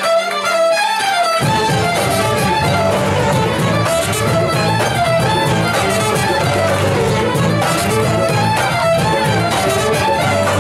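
Live folk ensemble playing a lively dance tune, led by massed fiddles over a brass bass line on tuba. The bass drops out at the start and comes back in about a second and a half in, then keeps a steady pulse.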